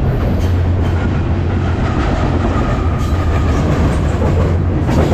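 Freight train rolling along the rails, a loud steady rumble with a faint high wheel squeal for a couple of seconds starting about a second in.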